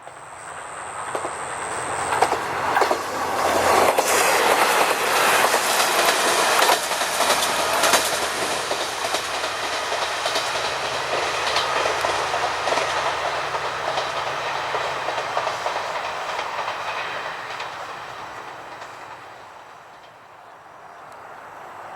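A passing vehicle with a clatter of sharp clicks, growing loud over the first few seconds and then slowly fading away.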